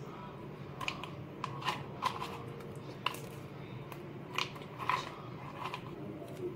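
Oreo biscuits being broken and crushed by hand: about a dozen irregular short cracks and crunches, over a steady low hum.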